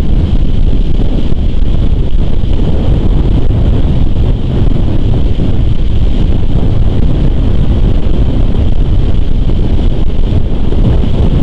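Wind buffeting an outdoor nest-cam microphone: a loud, steady low rumble with no distinct events, over a faint steady high tone.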